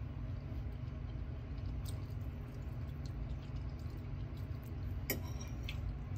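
A steady low hum with a few light clinks of a metal fork against a plate, the clearest about five seconds in.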